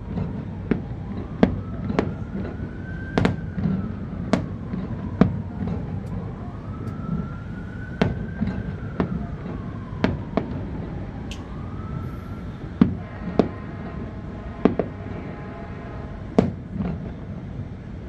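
Aerial fireworks bursting: sharp bangs at irregular intervals, roughly one a second, over a low continuous rumble. A siren wails slowly up and down behind them and fades out about two thirds of the way through.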